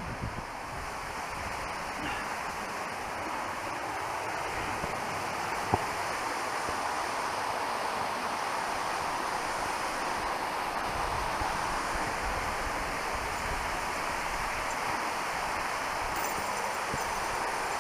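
Steady rushing water, like a mountain stream or waterfall, growing slightly louder, with a single sharp click about six seconds in.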